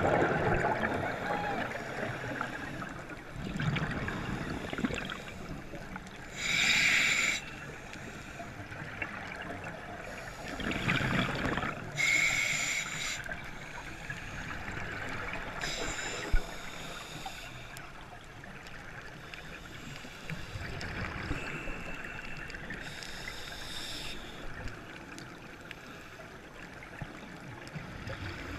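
Scuba diver breathing through a regulator, heard underwater: short hissing inhalations and rushes of exhaled bubbles, repeating every few seconds.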